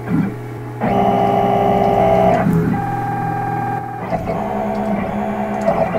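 CNC router's stepper motors whining as the gantry moves the bit through a test run in the air, the spindle not running. Steady pitched tones start about a second in and jump to new pitches as the moves change, over a constant low hum.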